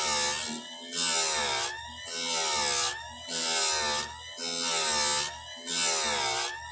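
Electric chain grinder's wheel grinding a chainsaw cutter tooth in about seven short strokes, roughly one a second. Each stroke is a gritty high hiss, with the motor's whine dipping in pitch under the load and recovering in the short gaps between strokes.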